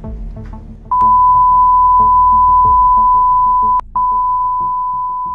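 Loud, steady test-pattern tone, the single beep that goes with TV colour bars, starting about a second in, broken by a click and a short gap near four seconds, then starting to fade near the end. Quiet low music notes sound underneath.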